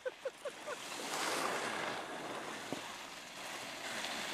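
Skis hissing and scraping over packed snow as skiers glide past close by, a broad hiss that swells from about a second in. A handful of short chirps sound in the first second, and there is a single sharp click midway.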